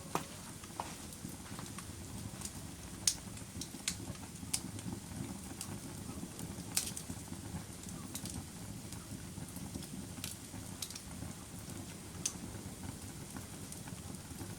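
Campfire crackling: a steady low rumble of burning with irregular sharp pops and snaps, the loudest about three seconds in.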